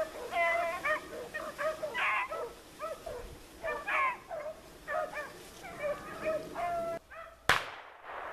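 Hunting beagles baying and yipping on a rabbit's trail: a run of short, high, repeated calls, several overlapping. The calls cut off abruptly about seven seconds in, and a single sharp crack follows.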